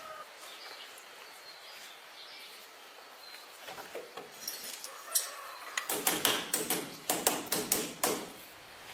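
A quiet stretch, then scattered clicks, and from about six seconds in a quick run of sharp knocks and clicks, like tools or parts being handled.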